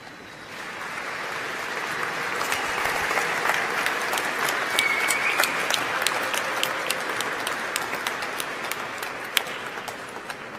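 Audience applauding. It swells about half a second in, holds in the middle with single sharp claps standing out, and tapers off near the end.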